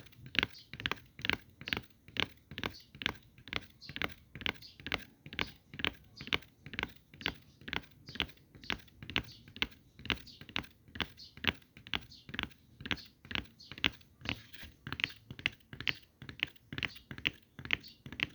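Close-miked ASMR trigger sounds: an even run of crisp, short clicking or crunching strokes, about three a second.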